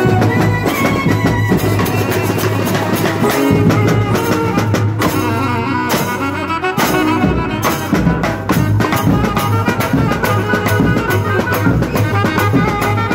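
Festival brass band playing live: a clarinet carries the melody with brass, over side drums and a bass drum beaten in a steady rhythm.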